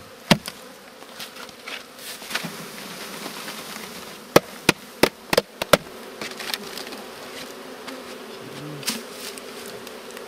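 Honeybees buzzing steadily as a package of bees is emptied into a hive. A quick run of about six sharp knocks comes about four to six seconds in, with a single knock just after the start: the cardboard package being knocked against the hive to shake the bees loose.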